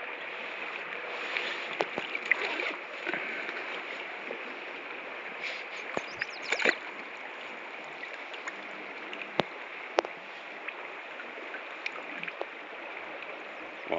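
Steady river current flowing and gurgling around a wading angler, with a few small splashes and clicks as a trout is handled and lifted from the net in the water.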